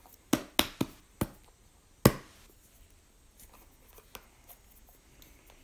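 Hands fumbling with a squishy brain-shaped stress ball toy: a few sharp clicks and taps, the loudest about two seconds in, then only faint ticks of handling.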